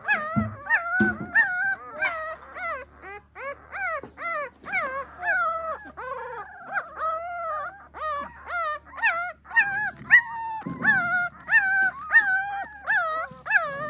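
Pahadi puppies whimpering: a rapid run of short, high-pitched cries, two or three a second, each rising and then falling in pitch.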